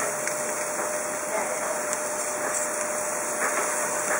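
Scotch fillet steaks sizzling on a gas barbecue's slotted grill plate: a steady hiss.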